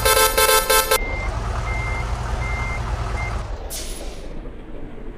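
Multi-tone 'telolet' bus horn playing a run of rapid pulsing notes that stops about a second in. Then a reversing beeper sounds four times over the running engine, and a short hiss of air comes out near the end.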